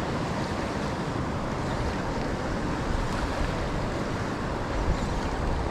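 Steady rush of wind on the microphone over choppy river water slapping around a kayak.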